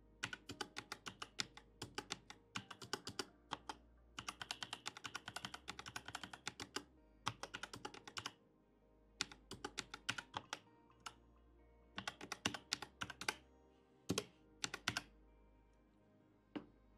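Typing on a computer keyboard: runs of quick keystrokes with short pauses between them, entering numbers into fields, and a few separate louder key clicks near the end.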